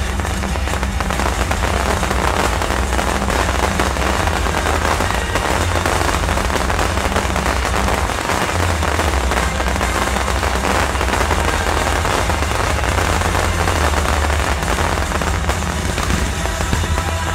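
Aerial fireworks display going off in a dense, continuous barrage of rapid crackling pops, with no single boom standing out. Steady low music plays underneath.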